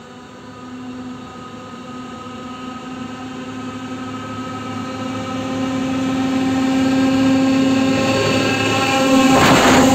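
Diesel locomotive of an approaching freight train, its engine drone growing steadily louder as it nears. In the last half second it is joined by the rushing noise of the train reaching and passing.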